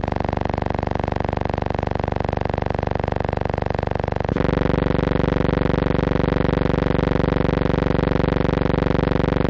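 Steady hum of many even overtones with a fast, regular flutter. About four seconds in it jumps abruptly to a louder, higher-pitched hum, at the same moment as the cut in the picture. It is not a sound of the scene, since the film is silent.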